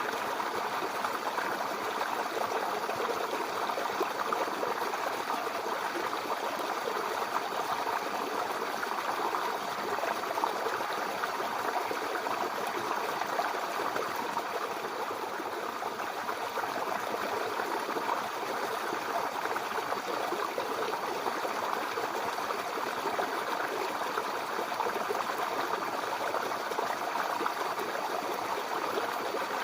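A babbling brook: shallow water running and trickling steadily over stones.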